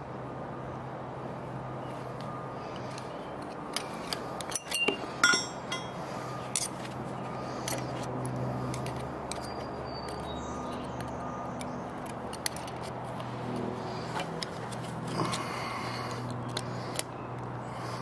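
Light metallic clicks and clinks of a small steel pick and hand tools working against the compressor's metal parts, coming in clusters, over a steady mechanical hum.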